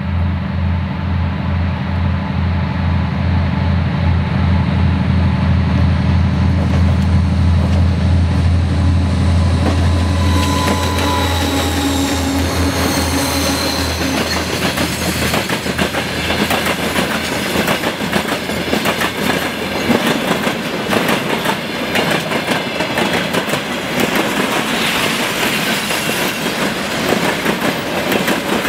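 2TE10M diesel locomotive passing close: the low pulsing drone of its 10D100 two-stroke diesel engines for about the first ten seconds, then the train's cars rolling past with rail clatter and some high wheel squeal.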